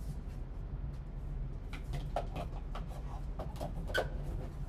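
Gloved hands handling a stack of trading cards and a small cardboard card box, making a run of light taps and clicks, with one sharper click about four seconds in, over a low steady hum.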